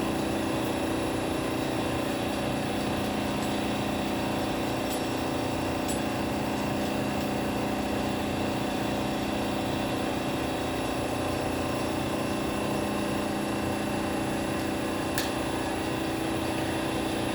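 Edwards xDS35iE dry scroll vacuum pump running steadily with a constant hum, its freshly fitted tip seals wearing in.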